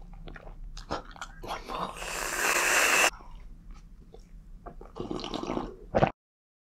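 Close-up chewing and wet mouth sounds. About two seconds in, an aerosol can of whipped cream sprays with a loud hiss for about a second. Near the end come sipping sounds from a cup of coffee, then the sound cuts off abruptly.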